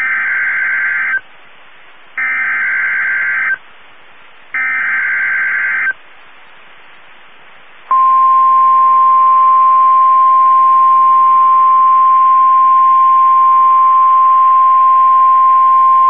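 NOAA Weather Radio emergency alert: three short buzzy bursts of SAME digital header data, about a second each, then the steady 1050 Hz warning alarm tone starting about eight seconds in. Together they announce a new warning, here a severe thunderstorm warning.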